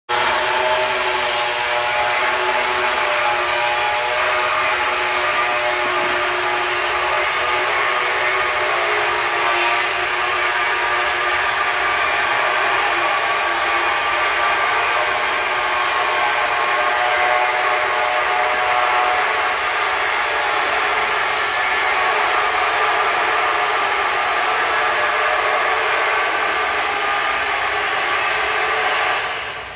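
Steady, unbroken whirring noise of a running motor or power tool, with no rhythm, cutting away shortly before the end.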